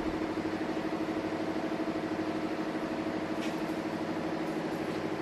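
Workshop machinery running steadily: a constant mechanical drone with a strong held tone and a fast, even pulse.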